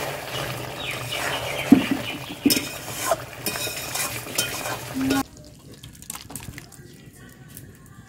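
Metal ladle stirring and scooping thick cauliflower curry in an aluminium cooking pot, with a few sharp knocks of the ladle against the pot over a sizzling haze. The sound cuts off suddenly about five seconds in, leaving only faint clicks.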